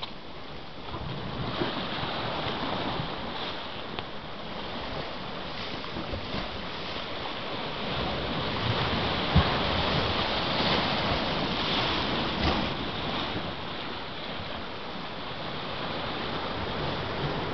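Sea surf washing and churning over rock ledges, a steady rushing hiss that grows louder through the middle as the water surges, with wind buffeting the microphone. A brief thump about nine seconds in is the loudest moment.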